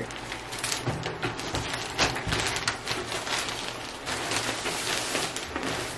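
Plastic poly mailer envelopes rustling and crinkling as they are handled and pulled open, a dense run of small crackles.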